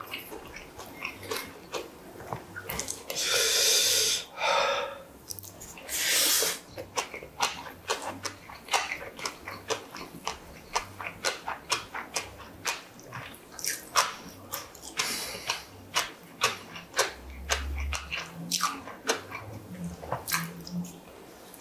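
Close-miked chewing of rice: a quick run of wet mouth clicks and lip smacks, several a second. Two longer rasping sounds about three and six seconds in, from a wooden spoon working the rice in a ceramic bowl.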